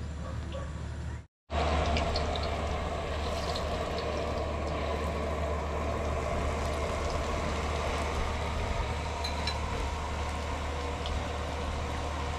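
Battered banana slices deep-frying in hot oil in a wok: a steady sizzle with small crackles, starting after a brief break about a second and a half in, over a steady low hum.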